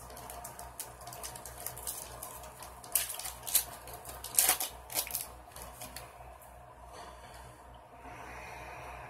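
Foil trading-card pack wrapper crinkling and being torn open by hand, a run of sharp crackles that is loudest about three to five seconds in, then softer rustling as the cards come out.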